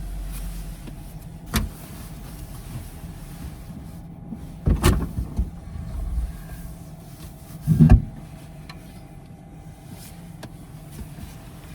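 A few dull knocks and thuds, three of them sharp, over a low steady hum.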